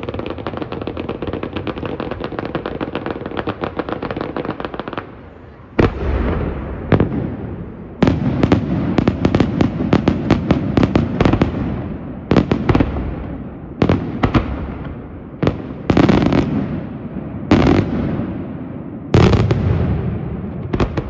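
Fireworks display: a dense, rapid crackling barrage for the first five seconds, then a string of about ten loud shell bursts, each trailing off in crackle and echo.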